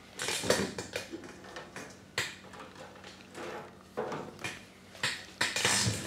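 Scattered light clicks, taps and short scrapes of small metal parts being handled, as multimeter probes and leads are set against the compressor's terminal pins for a resistance test.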